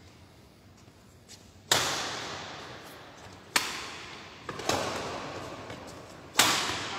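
Badminton rackets striking a shuttlecock four times in a rally, each sharp crack echoing through a large hall.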